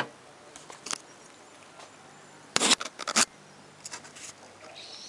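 Handling noise from a handheld camera: scattered sharp clicks and rustles, with the loudest cluster of clicks about two and a half seconds in.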